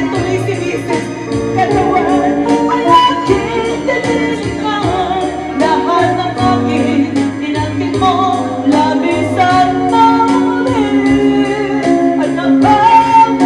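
A woman singing a pop ballad into a microphone, backed by electric guitar and a band with a steady beat and bass.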